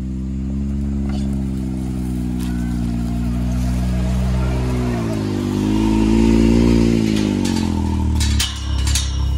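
Can-Am Maverick X3 side-by-side's turbocharged three-cylinder engine running at low revs as it drives slowly past close by. Its pitch dips, then swells and falls as the machine passes about two-thirds of the way through. A few sharp clicks come near the end.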